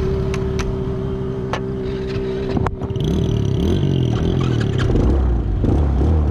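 Motor vehicle engines: a steady engine drone, then after an abrupt change about two and a half seconds in, engine notes rising and falling in pitch.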